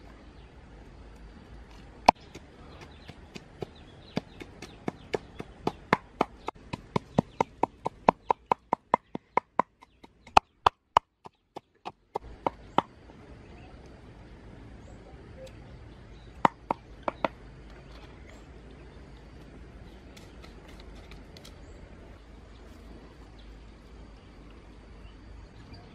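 Food being chopped with a knife: a steady run of sharp strikes, about three a second, breaking off after about ten seconds, then three more strikes a few seconds later.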